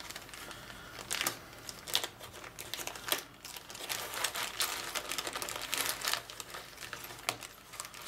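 Clear plastic zip-lock bag crinkling and crackling in irregular short clicks as it is opened and handled, with the kit's circuit board and small parts shifting inside.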